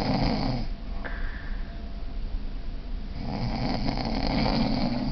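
A man snoring in his sleep: one loud rasping snore trails off under a second in, a quieter breath follows, and a second long snore starts about three seconds in and runs for about two seconds.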